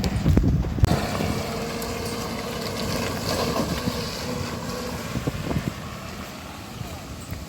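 Hurricane wind buffeting the microphone with low rumbles for about a second, then a steady rushing hiss with a faint hum underneath that swells a little midway and eases toward the end.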